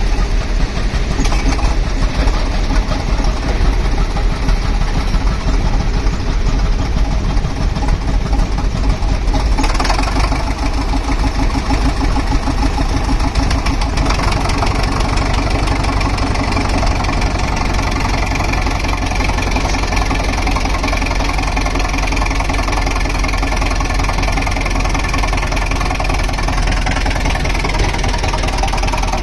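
A compressor's engine running steadily with a rapid, even beat; a little more high-pitched noise joins in about ten seconds in.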